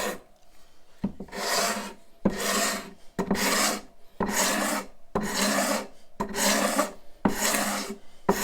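Hand scraper drawn over a wooden board in repeated strokes, about one a second, each starting with a sharp click as the blade bites; it is taking the saw marks off the surface.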